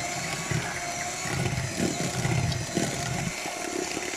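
Electric hand mixer running as it beats eggs with sugar into a foamy, spongy mixture; its low hum eases off a little after three seconds in.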